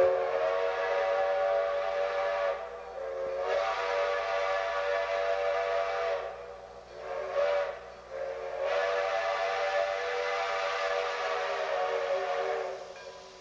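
Steam whistle of ex-Grand Trunk Western 2-8-2 Mikado steam locomotive No. 4070 blowing four blasts, long, long, short, long: the standard grade-crossing warning signal.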